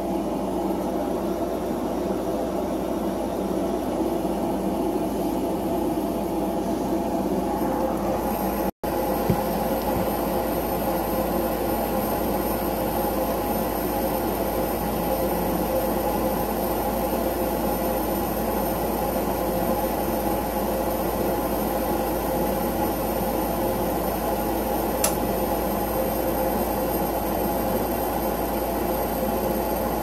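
Gas furnace running with its burners lit: a steady rushing drone with the hum of the draft inducer motor. It drops out for an instant about nine seconds in, and there is one light tick near the end.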